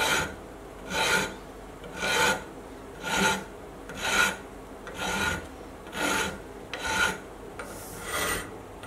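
Hand file being drawn across an aluminium part at its brazed joint: nine steady rasping strokes, about one a second, each a short scrape.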